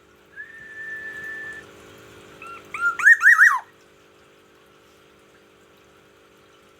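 Black-naped oriole (kepodang emas) calling: one held, even whistle, then about two seconds later a loud, quick run of slurred, rising-and-falling notes.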